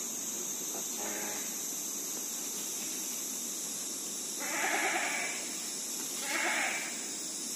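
A goat bleating twice, about four and six seconds in, each call wavering in pitch, over a steady high-pitched insect drone.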